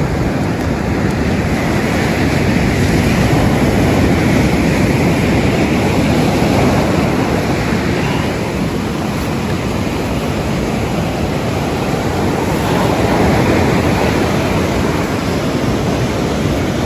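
Surf breaking and washing up a sandy beach, with wind buffeting the microphone: a steady rushing noise that swells and eases with the waves.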